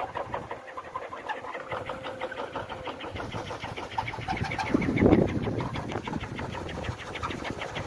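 A kolecer, a wooden wind-driven propeller on a tall pole, spinning fast in the wind and giving a continuous engine-like buzzing drone made of rapid beats. About five seconds in, a gust of wind buffets the microphone.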